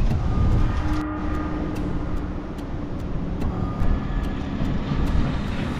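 A motor vehicle running, with a deep, constant rumble like strong wind buffeting. From about a second in, a steady hum holds for a couple of seconds.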